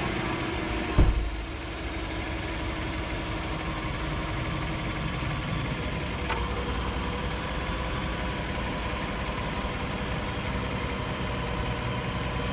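2015 Chevrolet Silverado's engine idling steadily just after start-up, freshly filled with new oil and warming up. There is a single loud thump about a second in.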